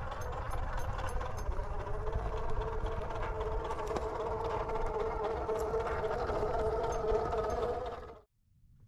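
RC rock crawler's electric motor and geared drivetrain whining steadily under load as it climbs, with a low rumble beneath; the sound cuts off abruptly about eight seconds in.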